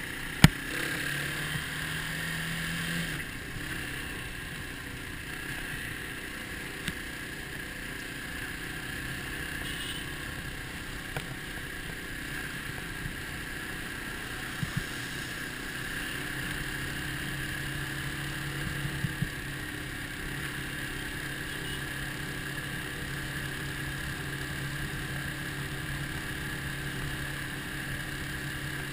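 Dirt bike engine running steadily while riding, with wind noise on the camera microphone. A few sharp knocks from bumps, the loudest about half a second in.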